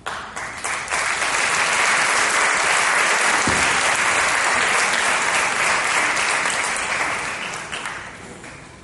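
Audience applauding, breaking out suddenly, holding steady, then dying away over the last couple of seconds.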